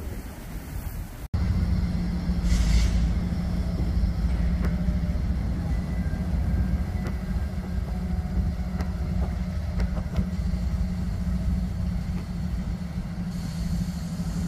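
Wind on the microphone for about a second, then a diesel locomotive idling with a steady low rumble and hum, and a short hiss of air about two and a half seconds in.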